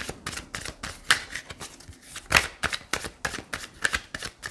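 A deck of tarot cards being shuffled by hand: an irregular run of quick card snaps and flicks as the cards are riffled and pushed against one another.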